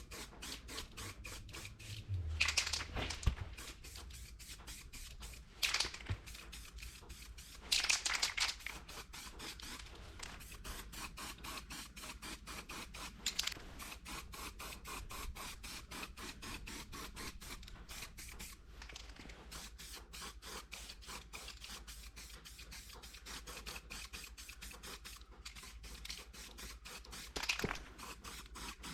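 Aerosol spray paint can hissing in a few short bursts, the longest about a second: primer being sprayed onto cut expanded steel mesh grilles. A constant fine, fast crackle runs underneath.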